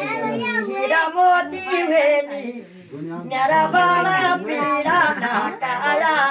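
Unaccompanied voices singing in long, held, wavering notes, with a short break about two and a half seconds in.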